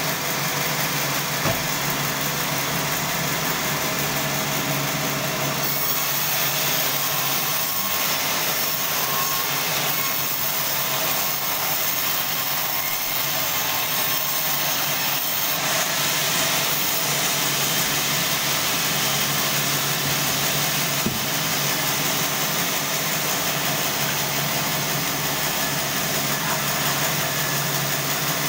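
Sawmill band saw running steadily, a constant motor hum under a high hiss of the blade, the sound shifting about six seconds in and again near the middle.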